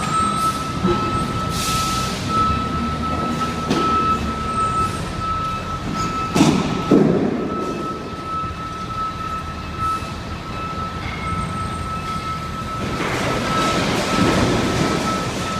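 Heavy landfill machinery running: a steady engine rumble with a constant high whine over it, and a few loud metallic clanks around the middle.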